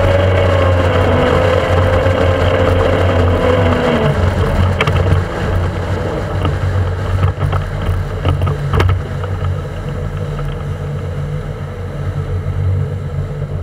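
Motorboat engine running under way, with a steady low hum and wind on the microphone. Its whine eases down in pitch and fades about four seconds in, and a few sharp knocks follow.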